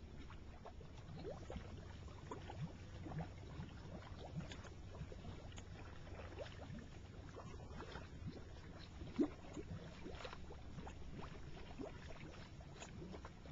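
Geothermal mud pots bubbling: gas bursting up through wet mud in irregular plops and gurgles, one sharper pop about nine seconds in, over a steady low rumble.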